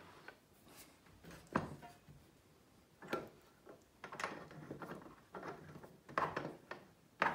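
Scattered wooden knocks, clicks and scraping as a pipe clamp is worked and tightened across a walnut and cherry cutting-board glue-up. The sharpest knocks come about a second and a half in, twice near the middle and once at the very end.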